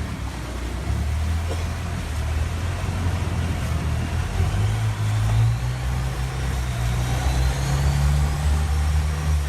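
Tour boat's engine running on a canal, a steady low hum over rushing noise; about halfway through its pitch rises as the boat speeds up.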